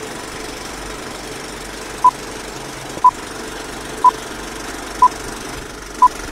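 Film-leader countdown sound effect: a steady rattling film-projector noise with a short beep once a second, five identical beeps starting about two seconds in.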